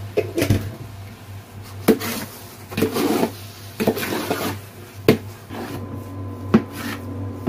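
Long metal spoon stirring and scraping through thick, sugary chana dal halwa in a large metal pot, knocking sharply against the pot about four times, over a steady low hum.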